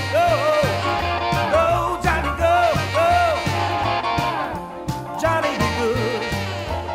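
Background music: an upbeat song with a steady beat, a bass line and a sung or lead melody.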